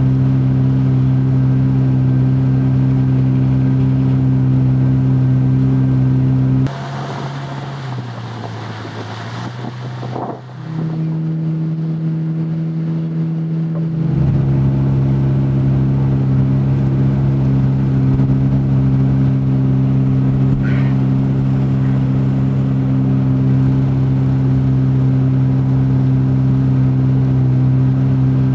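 Outboard motor of a small fishing boat running at steady cruising speed, an even low drone. It changes abruptly about seven seconds in, running quieter and a little lower for several seconds, then returns to the full steady drone about fourteen seconds in.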